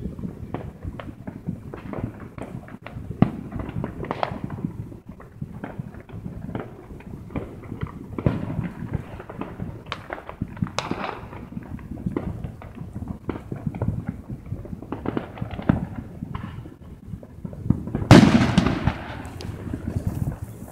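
Fireworks going off: a continuous run of irregular pops and bangs, with a louder, longer burst near the end.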